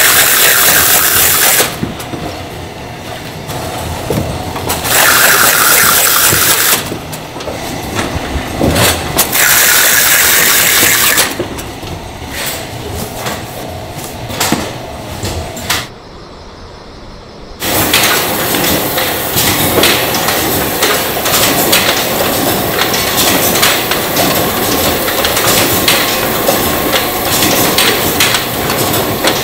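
Packing-line machinery: three loud rasping bursts of about two seconds each, near the start, about five seconds in and about nine seconds in, as cartons run through a tape-sealing machine, then from about eighteen seconds a dense, steady clatter of factory machinery full of small clicks.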